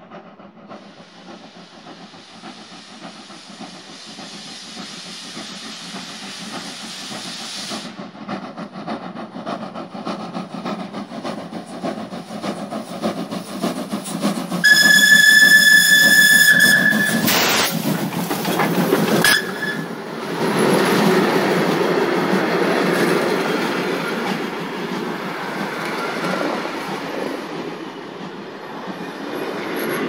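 A steam locomotive approaches with its exhaust beats growing steadily louder, sounds its steam whistle in one long blast about halfway through, and passes close by, followed by its coaches rolling past with wheel clatter.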